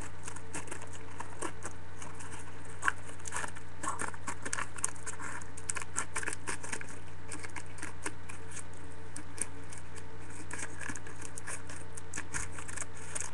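Irregular light clicks and crinkles of a thin plastic cup being cut with scissors and handled, over a steady low hum.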